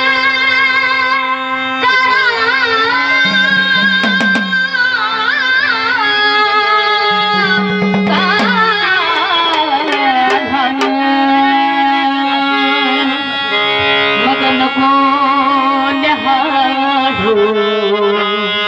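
Instrumental passage of a Marathi gavlan folk-devotional song: a held, wavering melody line over percussion.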